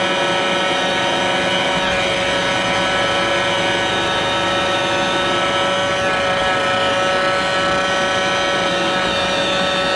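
Roomba robot vacuum running close up: a steady motor hum made of many tones over brush and suction noise, with a light knock about two seconds in.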